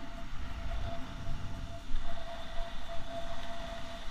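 Wind buffeting the microphone over waves washing onto the shore, with a steady high whine underneath.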